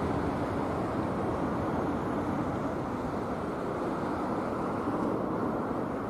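Sanyo Shinkansen Mizuho train running over the Kakogawa bridge: a steady rushing rumble that slowly fades as the train moves away.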